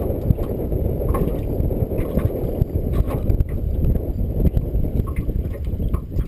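Wind buffeting the microphone on a boat, a steady low rumble, with faint small knocks now and then.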